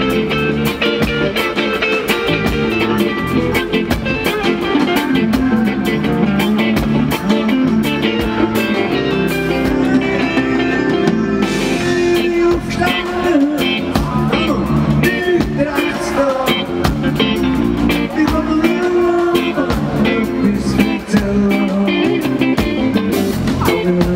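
Live rock band playing: electric guitars, bass guitar and drum kit, with a man singing into the microphone over them.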